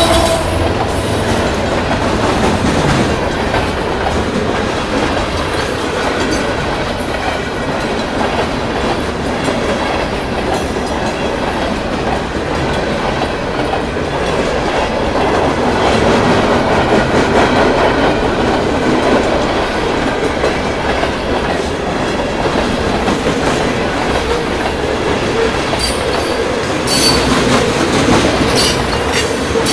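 A CN freight train rolling past at close range, a steady rumble with wheels clacking over the rail joints. The last of the locomotive's horn chord cuts off right at the start, and sharper clicks and a brief high wheel squeal come near the end.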